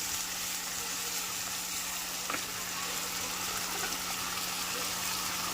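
Boneless chicken pieces with green chillies and ginger-garlic paste sizzling steadily in hot oil in a pan, with a single light click about two seconds in.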